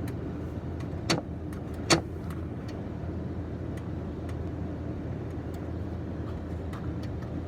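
Early-1990s air conditioner running, its fan giving a steady low hum with air noise. Two sharp clicks about one and two seconds in, with a few fainter ticks, as its thermostat knob is turned.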